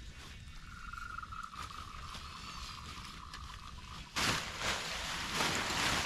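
A steady high trill in the background, then about four seconds in a sudden loud rustling and flapping of tent fabric being pulled out of its bag and shaken open.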